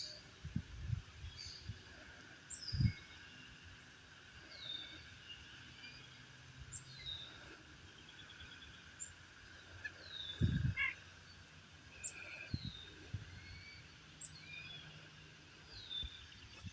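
Small songbirds calling with repeated short, high chirps that fall in pitch, over a faint outdoor background. A few low thuds come near the start and again about ten and twelve seconds in.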